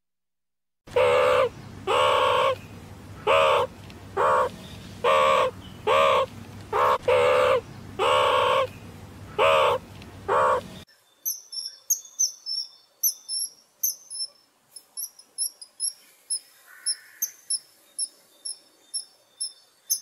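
An animal calling: about eleven short honking calls with a clear pitch over a steady low hum. About halfway through they stop, and rapid high-pitched bird chirping follows.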